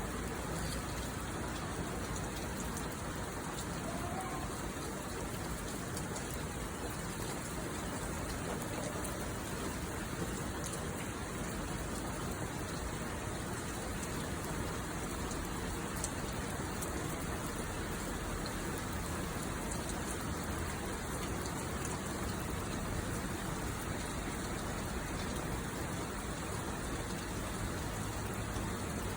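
Heavy monsoon downpour falling steadily, an even hiss of rain without let-up.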